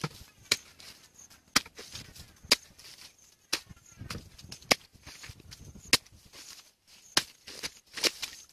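A long-handled hoe chopping into wet, muddy soil, about one sharp strike a second, eight strikes in all.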